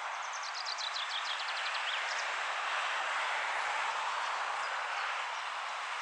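John Deere 7530 tractor working under load while ploughing, a steady, even mechanical noise without rhythm. Over the first two seconds a songbird sings a quick descending run of high notes above it.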